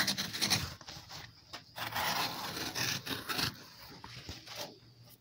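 Thick cowhide being cut into a lace with a hand-held adjustable leather strip cutter: the blade slicing and the leather dragging give an uneven scraping, rubbing sound in a few stretches with short breaks.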